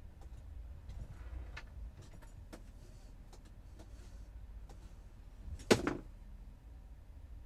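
Faint clicks and handling noises over a low rumble inside a van, then one loud clunk a little under six seconds in.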